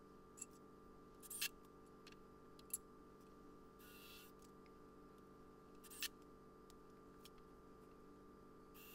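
Near silence with a faint steady hum, broken by a few short, sharp clicks and taps from handling a cordless drill and 2x4 lumber during assembly; the loudest come about a second and a half in, near three seconds in, and at about six seconds, with a brief hiss around four seconds in. The drill itself is not running.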